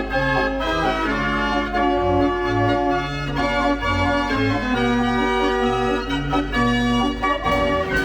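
Fairground organ playing a tune: held, reedy organ notes over a bass line that steps from note to note, with a few drum beats near the end.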